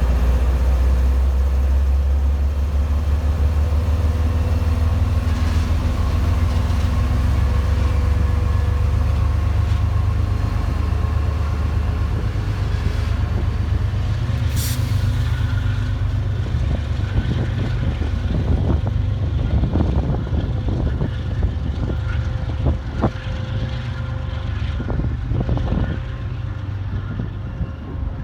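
MBTA commuter train with an HSP-46 diesel locomotive: a heavy, deep engine rumble with a steady whine, slowly fading as the train moves off. A short hiss comes about halfway through, and a run of clunks follows in the second half.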